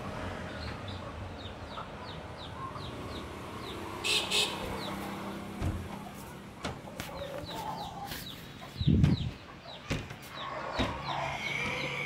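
Chickens clucking, with a run of short high chirps repeating a few times a second behind them. The camera is handled, giving several clicks and a loud knock about nine seconds in.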